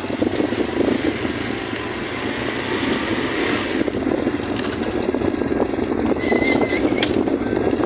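Motorcycle engine running steadily as it rides along a concrete road, mixed with wind on the microphone. A short high tone sounds about six seconds in.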